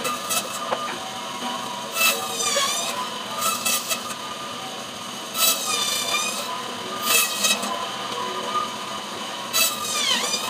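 Electric band saw (meat and bone saw) running steadily while kingfish is pushed through its blade. Several times the cut sets off a louder whining grind whose pitch dips and recovers as the blade bites through the fish.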